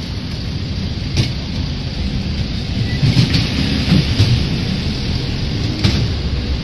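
Busy road traffic with a truck, buses and cars passing close by: a steady low rumble and hiss. Two sharp clicks come about a second in and near the end.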